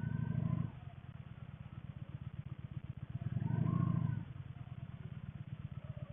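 Motorcycle engine running, with a rapid low pulse that swells louder twice, at the start and again about three and a half seconds in, as the throttle is opened.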